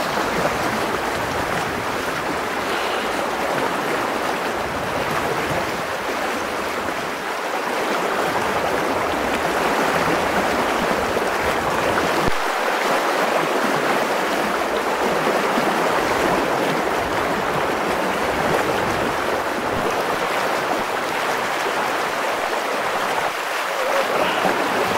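Fast, shallow river current rushing and splashing around the legs of a person standing in it: a steady rush of water.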